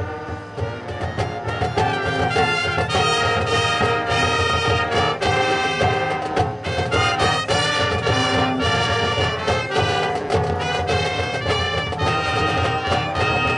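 Marching band playing its field show: trumpets and trombones carry the melody over a steady beat of drum hits.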